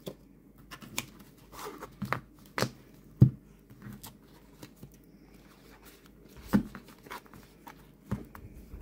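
Tarot cards handled and set down on a table: a scattering of light taps and clicks of card on card and card on tabletop, the sharpest about three seconds in.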